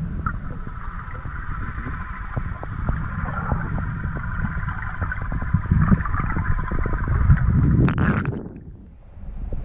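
Muffled underwater sound picked up by a camera in a waterproof housing: a low rumble of water moving past it, with scattered clicks and a steady higher hum that stops about eight seconds in, after which the sound briefly drops away.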